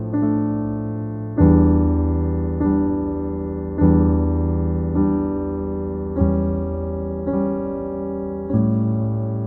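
Background piano music: slow, sustained chords struck about once every second or so, each left to ring and fade.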